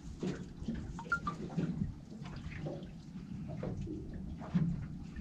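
Water lapping against the hull of a boat, with a few light clicks and knocks.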